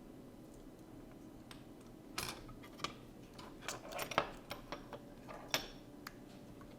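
Irregular light clicks and taps of small metal hand tools such as tweezers handled on a workbench, about a dozen of them clustered from about two seconds in to near the end, over a faint steady hum.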